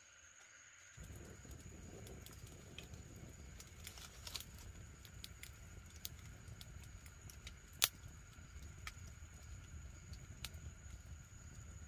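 Campfire of bamboo and wood burning, a low rumble of flames with scattered crackles and pops, and one loud sharp pop about eight seconds in.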